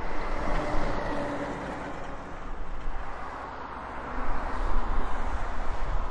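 Steady rumbling noise of a passing vehicle, with wind buffeting the microphone; it swells louder about four seconds in.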